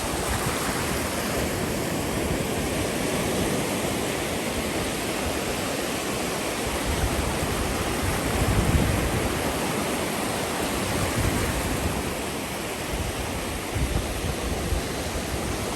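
Surf washing steadily onto a sandy beach, with wind buffeting the microphone in a few low gusts.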